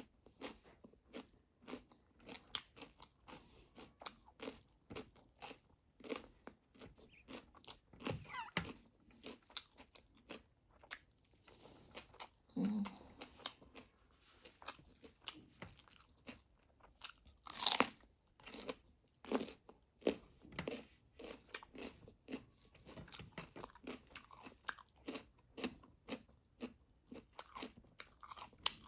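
A person eating close to the microphone, biting and chewing food in a steady run of irregular crunches and mouth clicks, with one louder crunch a little past halfway.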